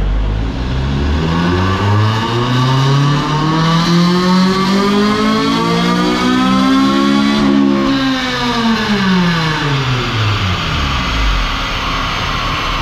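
Car engine on a chassis dyno during a full-throttle power run. The revs climb steadily for about seven seconds to the top, then the throttle is lifted and the revs fall away over about three seconds as the rollers slow.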